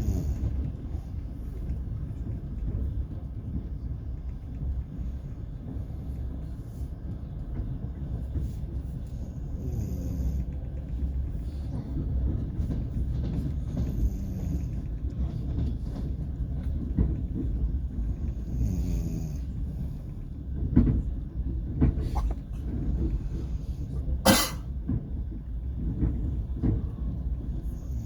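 Steady low rumble of a moving passenger train heard from inside the carriage, with a few sharp knocks in the last third, one much louder than the rest.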